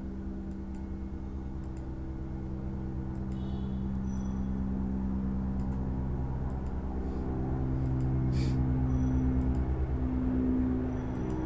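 Slow ambient background music: held low chords that change pitch a couple of times and swell gradually, over a steady low hum.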